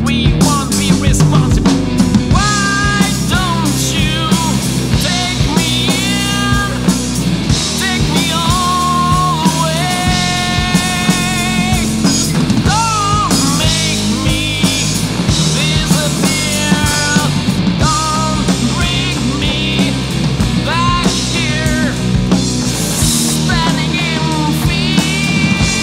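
Rock band recording with electric guitars, bass and drums: a steady low bass line and drum beat under a wavering, bending lead melody.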